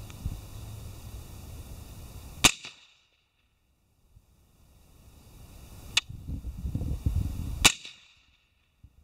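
Suppressed AR-15 rifle firing from a bipod: three sharp shots, the first about two and a half seconds in and the other two closer together near the end.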